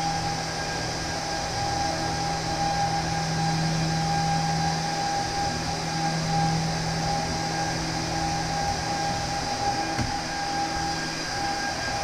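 Dell PowerEdge R710 server running with its cover off: a steady whirring drone with a steady whine over it. A soft knock about ten seconds in.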